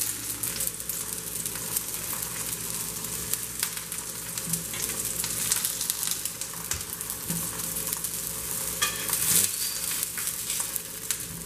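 Onions searing face down in olive oil in a pan over medium-high heat, sizzling steadily with a scatter of small crackles as their cut faces char.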